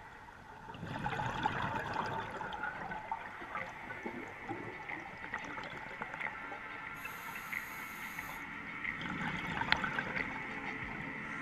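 Underwater gurgling and rushing of scuba exhaust bubbles, with scattered clicks and crackles in the water. It swells about a second in and surges again near the end.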